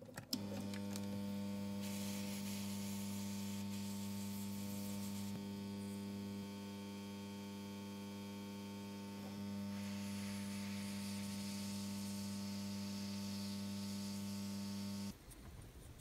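Hot air gun running: a steady mains-type hum with the hiss of blowing air, heating heat-shrink tubing over freshly soldered fan wires. It switches on just after the start and cuts off about a second before the end.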